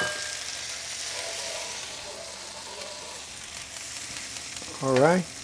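Barberries sizzling in melted butter in a frying pan over low heat, a steady hiss, stirred with a wooden spoon. A click right at the start, and a short pitched sound near the end.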